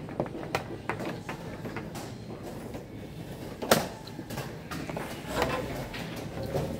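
Plastic chess pieces knocked down on the board and chess-clock buttons pressed in quick succession, a blitz game played out with only seconds left on the clock. One sharp knock a little past halfway is the loudest.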